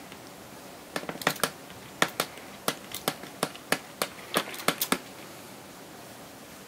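WD-40 from a hand trigger spray bottle, squirted in quick spritzes: a dozen or so short sprays over about four seconds, then it stops.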